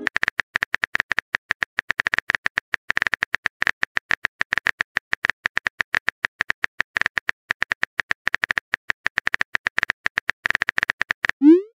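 Phone keyboard typing sound effect: rapid, unevenly spaced keystroke clicks as a text message is typed out.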